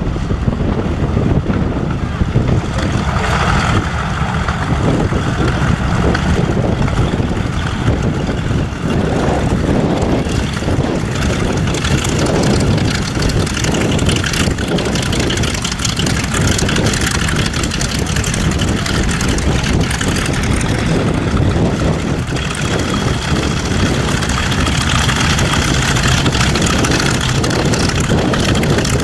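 Steady, loud engine noise with wind buffeting the microphone.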